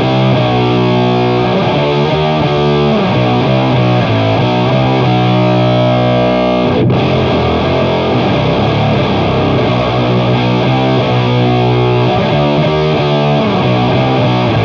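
Electric guitar tuned to B standard, played through a parallel blend of octave-up hyper fuzz and HM-2-style chainsaw distortion. It plays a slow doom-metal riff in B Phrygian built on the root, flat second, minor third, major third and flat seventh. The sound cuts out for an instant about seven seconds in.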